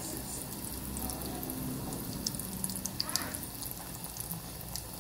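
Dough fritters (bolinhos de chuva) deep-frying in hot oil: a steady sizzle with many small sharp crackles and pops.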